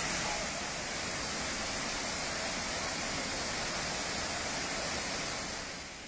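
Steady rushing of a waterfall, an even wash of falling water; it eases slightly just before the end.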